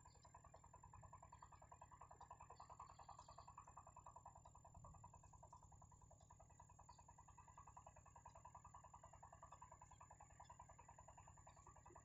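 Near silence: a faint, rapid, even pulsing drone with a thin steady high whine and a few tiny ticks.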